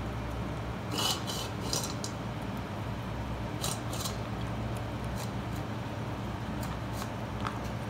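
German shepherd puppy eating dry kibble from a stainless steel bowl: scattered crunches and clinks of kibble against the bowl, with a cluster about a second in and another around four seconds in. A steady low hum runs underneath.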